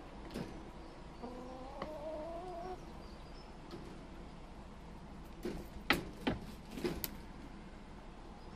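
A hen gives one drawn-out call that rises slightly, starting about a second in. A few sharp taps follow around six to seven seconds in.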